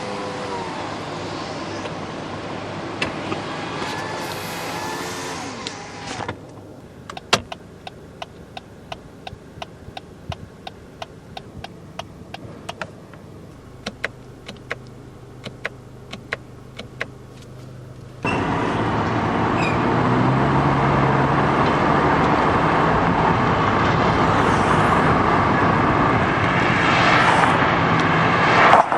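Lexus ES250 power window motor running for about six seconds, then the turn-signal relay ticking steadily in a quiet cabin. About eighteen seconds in, steady road and engine noise of the car driving comes in and stays loud to the end.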